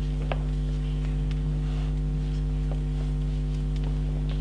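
Steady electrical mains hum, a low buzz of a few fixed tones at an even level, with a few faint clicks over it.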